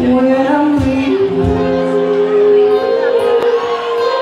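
Live pop song: a man singing long held notes that step upward in pitch, over two strummed acoustic guitars, amplified through microphones.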